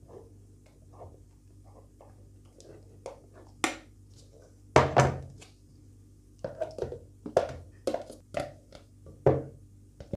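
Spatula stirring mousse of whipped cream and berry puree in a small steel saucepan, then scraping and knocking against a plastic tub and the pan. Soft stirring at first, then a run of sharp knocks from about four seconds in, the loudest near five seconds.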